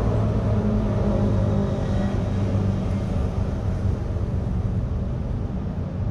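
Ducati Panigale V4 engine idling, a steady low hum that is slightly louder in the first couple of seconds.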